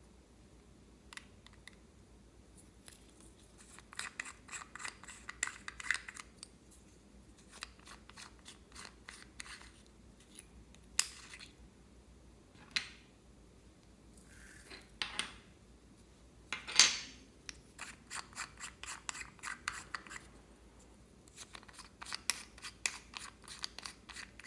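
Slime being squeezed and worked by hand, crackling in rapid runs of small clicks, with a few louder single pops between the runs.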